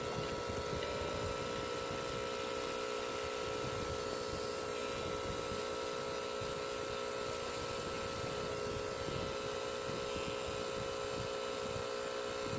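Electric tattoo machine running continuously with a steady motor hum of unchanging pitch while its needle works the skin.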